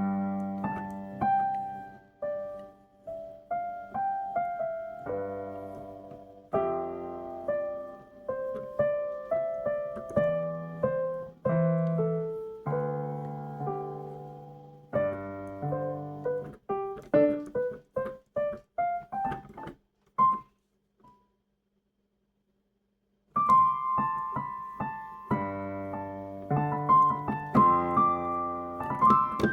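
Solo piano playing a melody over chords, each note struck and dying away, with a quick rising run of notes and then a pause of about three seconds before the playing resumes.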